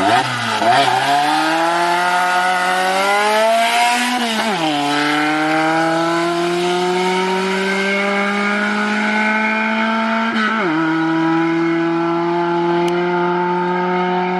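An engine running: its pitch climbs over the first four seconds, drops back about four and a half seconds in, then holds steady, with a brief dip in pitch near eleven seconds.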